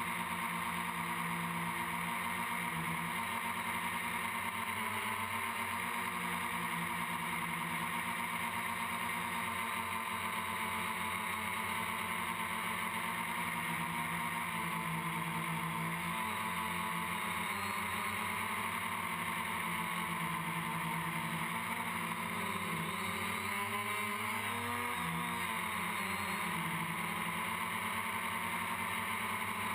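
Quadcopter's electric motors and propellers whining steadily as heard from its onboard camera, the pitch wavering up and down as the throttle changes.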